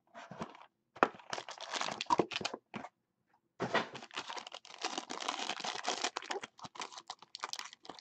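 A cardboard trading-card box being handled and opened, then a foil card pack torn open. First come short rustles and scrapes, and from about three and a half seconds in the foil wrapper crinkles on without a break.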